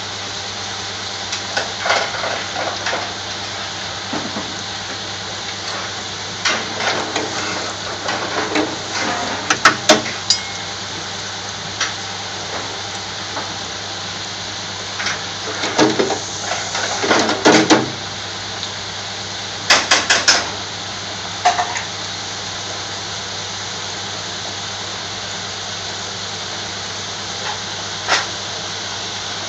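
Chips frying in a basket in a commercial electric deep fryer: a steady hiss of bubbling oil. Scattered bursts of knocks and clinks rise above it, loudest around ten seconds in, between about fifteen and eighteen seconds, and at twenty seconds.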